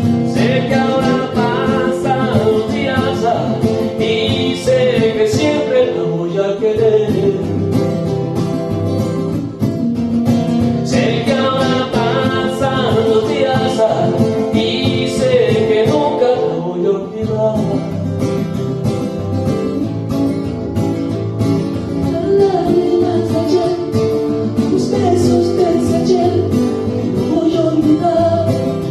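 Country music on acoustic guitar, strummed steadily, with a melody line over it.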